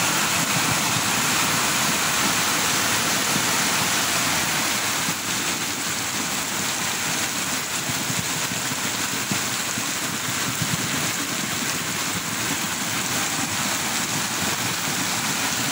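Muddy floodwater from an overflowing river rushing down a street in a torrent, under heavy rain: a steady rushing noise with a bright hiss on top.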